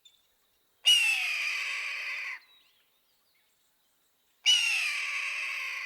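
Red-tailed hawk giving its scream twice, each call a long, hoarse cry that falls in pitch.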